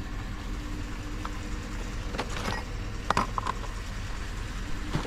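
Steady low rumble of a vehicle running, with a few short clicks and rattles about two and three seconds in.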